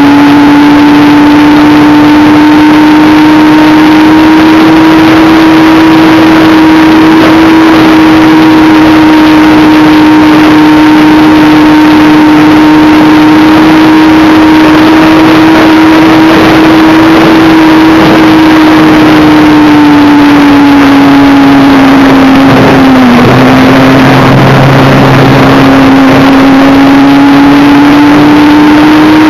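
Motor of a radio-controlled model Me 163 Komet, heard from its onboard camera, running with a steady whine over loud rushing-air noise. The pitch sags about three-quarters of the way through and climbs back near the end.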